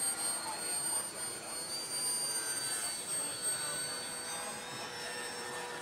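Distant RC model airplane's motor: a thin, high, steady whine whose pitch drifts slightly up and down.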